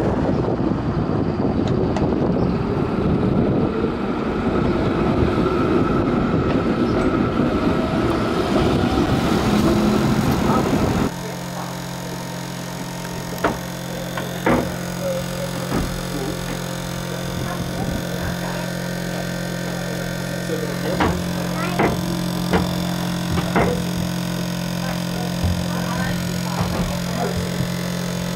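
A 1960 Bern Standard streetcar running past along the street: a steady rush of running noise. About eleven seconds in, the sound cuts to inside the tram's cab: a steady low electrical hum with scattered clicks and knocks.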